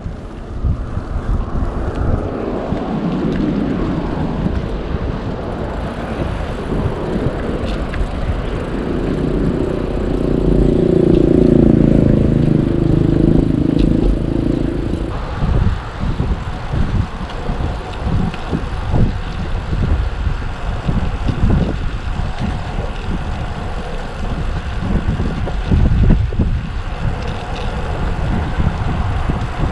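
Wind buffeting the microphone with a low rumble, and a motor passing by, loudest between about eight and fifteen seconds in.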